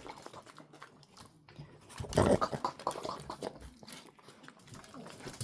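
A dog eating leftovers: rapid chewing and clicking mouth sounds, with one louder burst about two seconds in.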